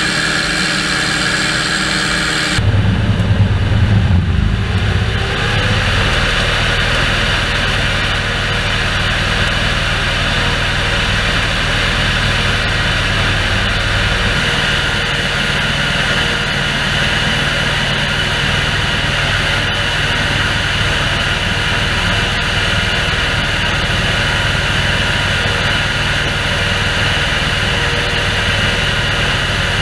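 Tractor engine and an airblast orchard sprayer's fan running, spraying oil on apple trees. The sound changes abruptly about two and a half seconds in, a tone rises in pitch over the next few seconds, then it settles into a steady drone with a high whine.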